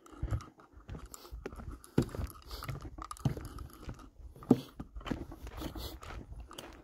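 Footsteps crunching on a gravelly dirt hiking trail, an uneven run of scuffs and crunches with a few sharper ones, over a low rumble.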